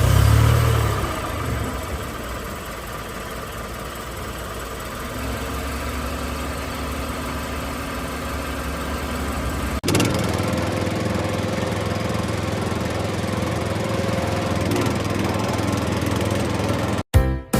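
Tractor engine sound idling steadily, the kind an RC toy tractor plays. It changes abruptly about ten seconds in, and music cuts in just before the end.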